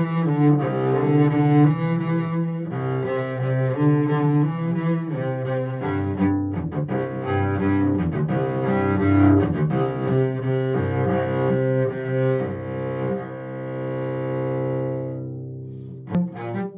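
Solo cello music: a slow composed piece of bowed notes, often several sounding together. Near the end a long held chord fades away, and after a brief click new notes begin.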